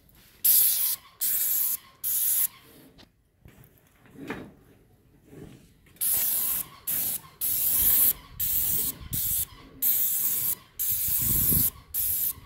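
Airless paint spray gun on an extension pole spraying paint onto roof tiles, hissing in short bursts as the trigger is pulled and released: three quick bursts, a pause of a few seconds, then a run of bursts about one a second.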